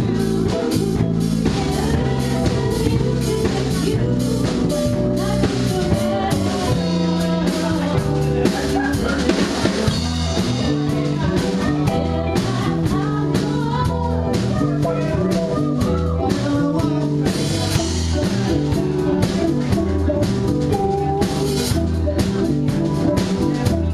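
Live band playing: electric guitars, bass and a drum kit keeping a steady beat, with a woman singing at times.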